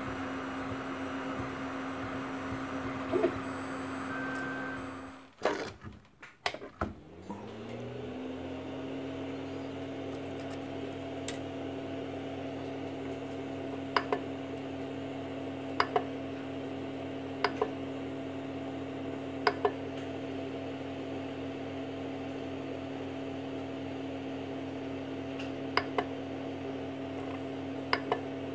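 Steady hum of the Creality CR-10S 3D printer's cooling fans. The hum breaks off about five seconds in, then rises in pitch back to its steady note. From about halfway on, the control box's rotary push-knob gives sharp clicks every couple of seconds, mostly in pairs, as it is pressed.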